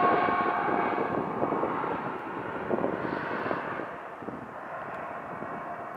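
Jet engines of a three-engined business jet on landing approach, a steady rushing noise that fades as the aircraft flies away. A faint whine heard at the start dies out within the first second.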